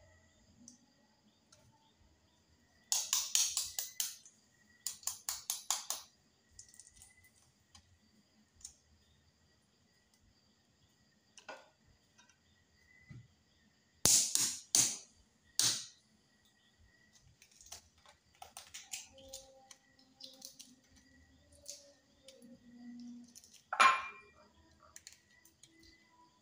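A spoon tapping and cracking the shell of a balut (boiled duck egg): two quick runs of light clicks a few seconds in, three sharper clicks about halfway, and one louder clink with a short ring near the end.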